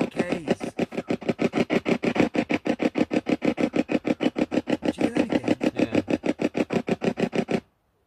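Spirit box rapidly sweeping through radio stations: a fast, even choppy pulsing of static and snatches of broadcast sound, about ten a second. It cuts off suddenly near the end.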